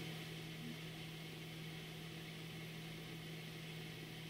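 A faint, steady low hum with a light hiss over it, unchanging throughout: background noise under the commentary.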